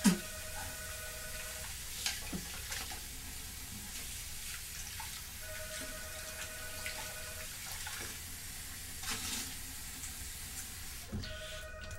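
Bathroom tap running into a sink, with a few sharp splashes as water is scooped onto a face. A telephone rings over it in trilling rings about two seconds long, three times, about every five and a half seconds.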